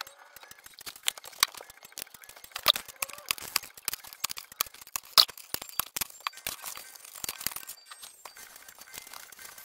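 Metal discbound notebook discs clicking and clinking as they are handled and pressed onto the punched edge of a notebook, with paper and the plastic cover rustling. The clicks come quickly and irregularly throughout.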